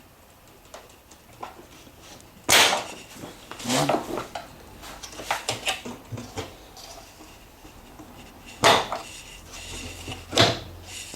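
Flat screwdriver prying at the plastic clips of a dishwasher's worktop lid: a series of sharp clicks and knocks, a few of them loud, as the clips are worked free.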